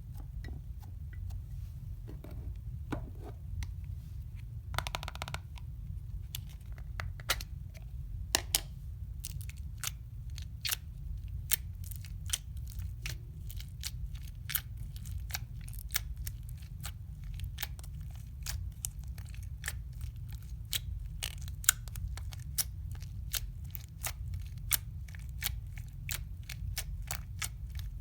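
Slime being handled, giving sharp, crisp clicks and crackles that start sparse and come faster, about two or three a second, from a third of the way in, over a low steady hum.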